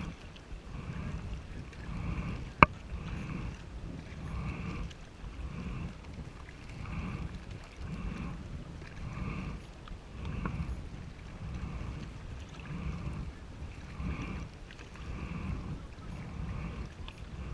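Kayak paddle strokes: the blades dip and pull through the water in a steady rhythm of about one stroke every second and a bit. A single sharp click, louder than the strokes, comes about two and a half seconds in.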